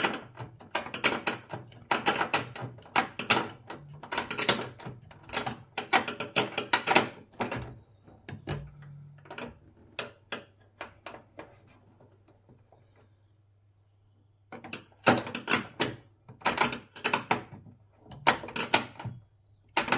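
Ratchet spanner clicking in quick runs as a nut is wound on, with a quieter pause of a few seconds in the middle before more runs of clicks.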